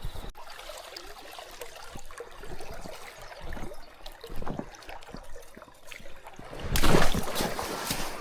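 Running water trickling and gurgling, with scattered small knocks and a louder rushing burst about seven seconds in.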